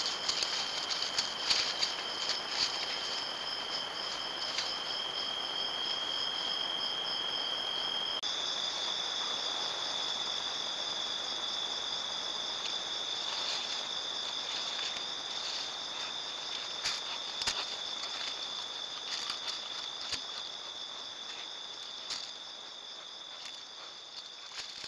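A chorus of crickets trilling steadily at a high pitch, stepping up slightly in pitch about eight seconds in, with scattered light clicks and rustles in dry leaf litter.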